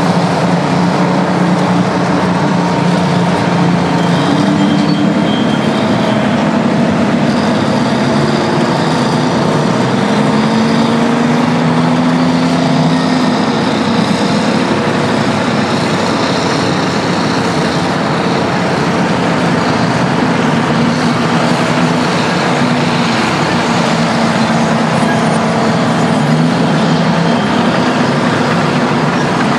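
Detroit Diesel two-stroke engines of Terex bulldozers and scrapers working under load, running continuously with the engine note rising and falling, most clearly about ten to thirteen seconds in.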